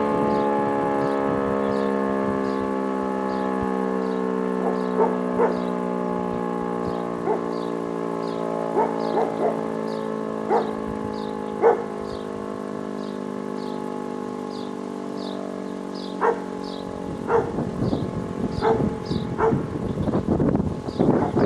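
E57 electric rotor siren winding down after sounding the fire-alarm signal: its chord-like wail slowly falls in pitch and dies away about 17 seconds in. A dog barks and yelps now and then over it, more often near the end.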